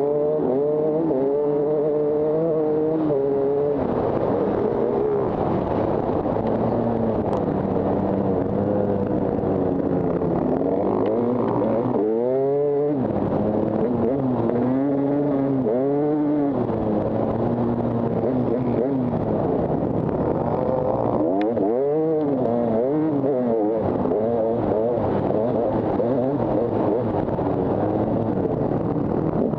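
Husaberg 300TE two-stroke enduro engine revving hard under load, its pitch rising and falling with the throttle, with several quick drops and climbs in pitch midway through from gear changes.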